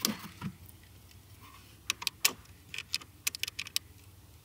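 Scattered light clicks, a dozen or so at irregular spacing, over a faint low hum, as the battery is hooked up to a Maserati Levante that has stood without power and its electrics start clicking.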